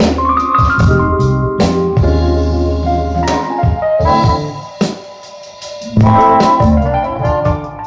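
Music with deep sustained bass notes, keyboard chords and drum hits, played as a demo through Klipsch R-26F floorstanding speakers. The music drops quieter for about a second and a half past the middle, then comes back loud.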